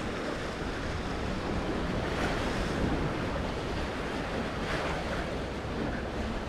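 Sea waves washing, with wind buffeting the microphone: a steady rush that swells up a little about two seconds in and again near five seconds.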